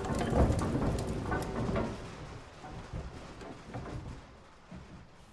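A noisy rumble with scattered crackles, fading away over the last few seconds.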